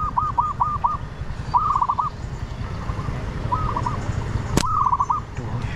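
An animal calling in quick strings of short chirps, about seven a second, coming in several bursts, with one sharp snap about four and a half seconds in.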